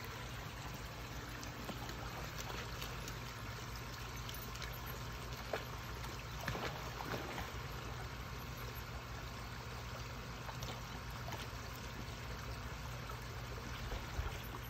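Water running and trickling steadily in a rock-lined garden pond stream, with a few faint splashes around the middle from a dog swimming.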